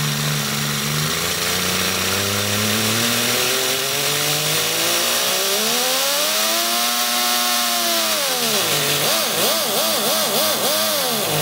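3D-printed inline three-cylinder compressed-air engine running on a hose feed over a steady hiss. Its pitch climbs slowly to a peak about seven seconds in and drops away, then rises and falls quickly about five times near the end.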